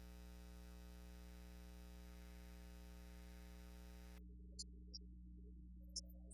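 Near silence: a faint steady hum with many even overtones, whose higher part cuts off suddenly about four seconds in, leaving only a low hum and a few faint ticks.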